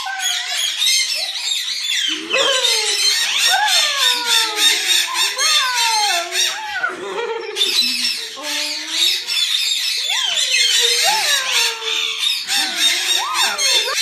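Caged budgerigars chirping and chattering nonstop, with a sulphur-crested cockatoo's gliding squeals and squawks over the chatter.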